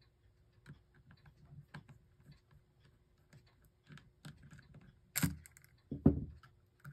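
Screwdriver working small screws loose from the rotor of a 1930s Sessions electric clock movement: faint scattered metal clicks and scrapes, then two louder sharp knocks about five and six seconds in.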